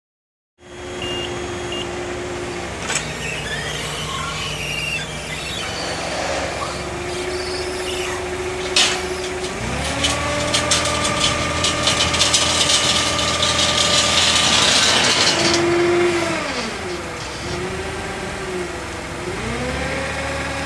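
A machine motor starts up about half a second in and runs with a steady hum. About halfway through its pitch steps up, and a hiss with a run of clicks comes over it for several seconds. Near the end the pitch falls and rises again a few times as the speed changes.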